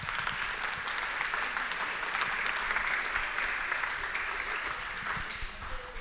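An audience applauding, a steady wash of many hands clapping that begins to die away near the end.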